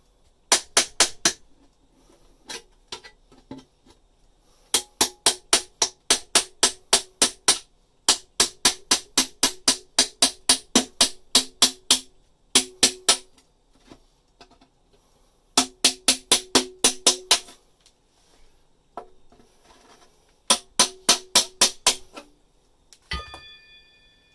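Rapid runs of hammer blows, about five a second in bursts of a few seconds, on the back of an electrician's knife (Mirai Denko Mac) as its blade is driven through a steel ceiling channel behind the board. Near the end, a single metallic clink that rings on.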